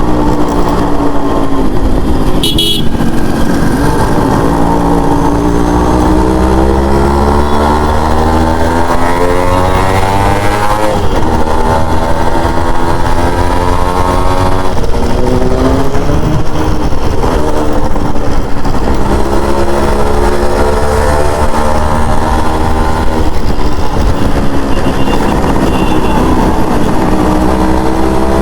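Yamaha RX100's single-cylinder two-stroke engine running under way, its note climbing as it accelerates and dropping at gear changes, several times over. A short horn beep sounds about two and a half seconds in.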